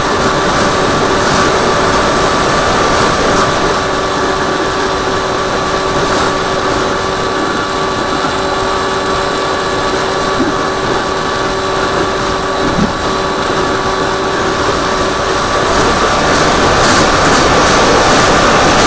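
Electric motor and pusher propeller of an AXN Floater Jet foam RC plane running steadily in flight, heard from a camera on the plane's nose: a steady whine over rushing wind noise, swelling slightly near the end.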